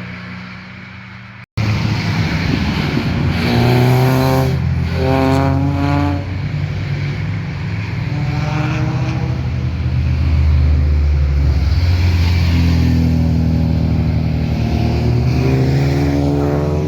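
Performance car exhaust accelerating hard: one car fades away, then after an abrupt cut an engine revs up repeatedly through the gears, its pitch climbing and dropping back with each shift before climbing again near the end.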